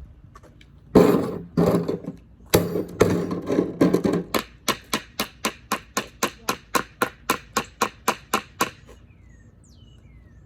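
Loud banging by hand on an object: a few heavy, uneven bangs, then a quick steady beating of about five strikes a second that stops about a second and a half before the end.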